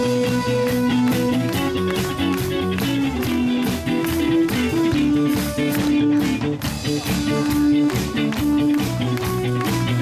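Live rock band playing an instrumental passage: electric guitars over a steady drum-kit beat.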